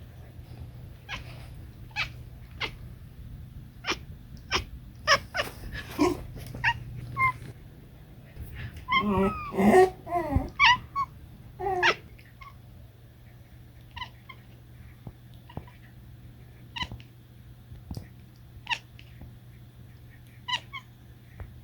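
Domestic cat chirping and chattering: short chirps about a second apart, a louder run of rapid chatter about nine to eleven seconds in, then sparser single chirps.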